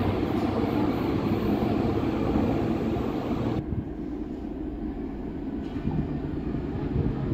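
Berlin U-Bahn train rumbling in an underground station. The steady rumble drops off abruptly about three and a half seconds in. A quieter rumble then builds again near the end as a train comes in from the tunnel.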